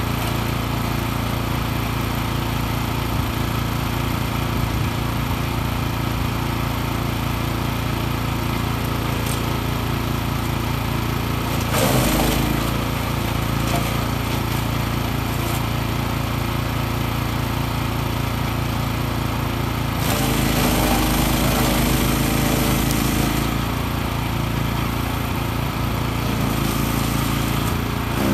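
The PRO-14HP wood chipper's 14-horsepower petrol engine running steadily at high speed while brush and branches are fed in. About 12 seconds in, and again from about 20 to 23 seconds, the engine note sags and the sound gets louder as wood goes through the chipper.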